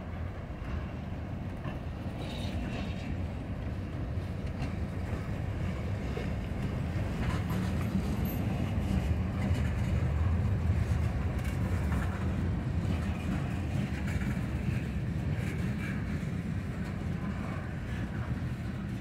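Slow-moving freight cars being shoved past on the adjacent track: steel wheels rumbling over the rails, with a few faint short squeaks. The rumble grows louder toward the middle and eases a little near the end.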